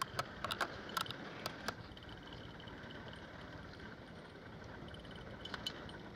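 Steady hum and wash of a small fishing boat at sea, with a quick run of sharp clicks in the first two seconds and a couple more about five and a half seconds in.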